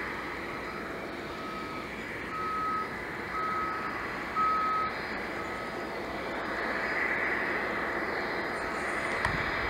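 Reversing alarm of an airport ground vehicle, a single-tone beep repeating about once a second and fading out after the first five or six, over the steady hum of a Boeing 767 at the stand. A single thud comes near the end.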